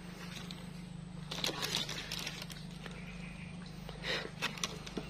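Footsteps squelching through wet mangrove mud, with clusters of sloshing steps about a second and a half in and again near four seconds, over a steady low hum.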